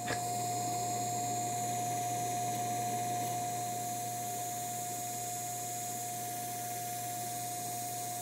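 Portable bandsaw running steadily: an even motor hum with one constant whine over a faint hiss, no cutting heard.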